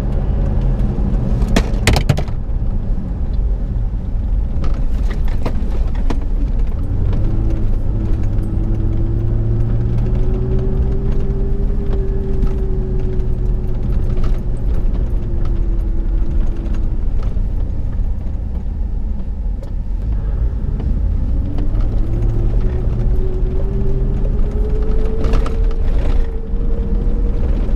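Ram Power Wagon pickup's Hemi V8 and tyres heard from inside the cab while driving: a steady low rumble, the engine note rising and falling twice with speed. A few sharp knocks and rattles come about two seconds in and again near the end.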